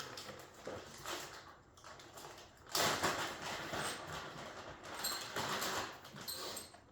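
Packaging being unwrapped and handled: irregular rustling and scraping of plastic bags and box packing, loudest in a burst about three seconds in, with more rustling a couple of seconds later.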